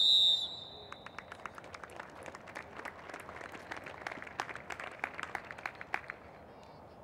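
A referee's whistle gives one short, loud blast, followed by scattered hand clapping for about five seconds that fades out near the end.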